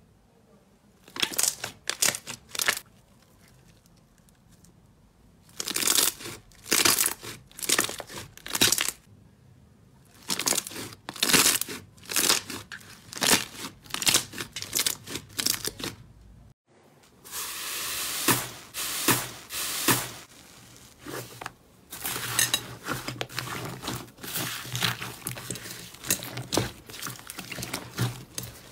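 Hands pressing and kneading slime, a sticky crackling in irregular bursts of many small clicks with short pauses between squeezes. It breaks off briefly about two-thirds of the way through, then comes back denser and steadier as a fluffier slime is worked.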